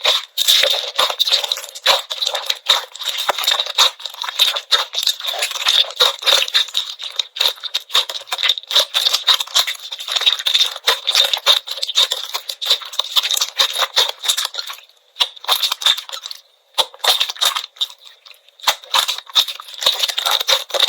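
Slime being squeezed and pressed by hand, making rapid crackling and popping clicks. It pauses briefly a few times in the last third.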